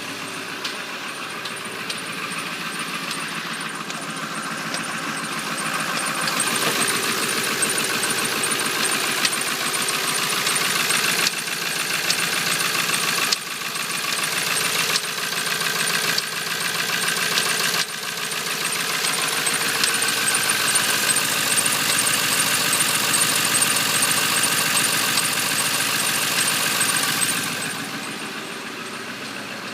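1997 Ford F250's 7.3-litre Powerstroke V8 diesel idling on a cold start, with a fast, even tapping over the engine sound. It gets louder about six seconds in and drops back near the end. The tapping only shows up when the engine is cold and at idle, and goes away once it warms up; its cause is unknown.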